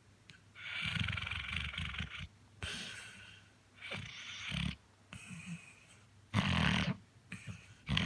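Chocolate Labrador Retriever snoring in its sleep: about five snore breaths, each around a second long with short gaps between.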